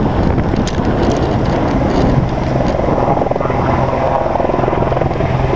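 Firefighting helicopter flying in, a steady rotor and engine rumble whose rapid blade beat becomes distinct about halfway through as it approaches.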